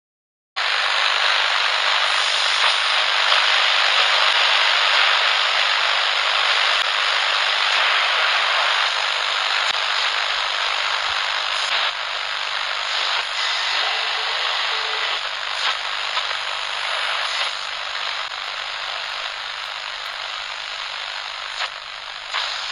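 Steady hiss of electronic static, like a detuned TV or radio, starting suddenly about half a second in and cutting off abruptly.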